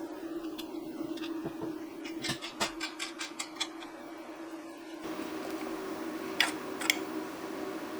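Light clicks and taps of small hard parts being handled: a quick run of them a couple of seconds in, and two more later, over a steady low hum.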